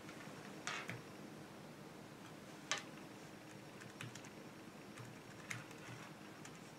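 Faint, irregular keystrokes on a computer keyboard as a search is typed, a few scattered clicks with the sharpest one nearly three seconds in.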